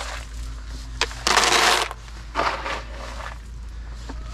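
Dry sheep feed being poured into a container: a sharp click about a second in, then a loud rattling rush of feed and a shorter second rush.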